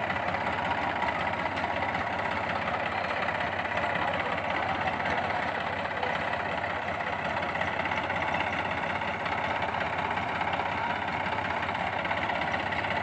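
New Holland 3230 tractor's diesel engine running steadily, its cage-wheeled tractor bogged in deep mud.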